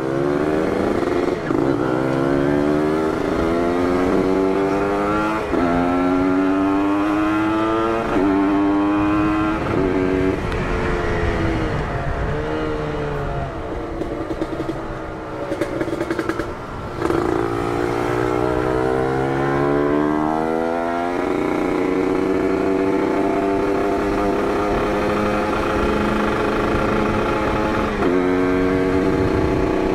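Two-stroke Kawasaki Ninja 150 motorcycle with an Aitech aftermarket exhaust, ridden under hard acceleration. Its engine note climbs and drops back at each upshift several times in the first ten seconds, eases off, then climbs again and holds a steady high note, with one more shift near the end.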